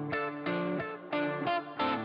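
Background music led by a guitar, plucking notes in a steady rhythm of about three a second.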